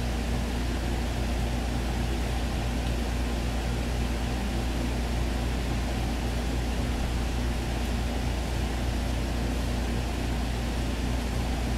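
Steady low mechanical hum that does not change, with no other sound standing out.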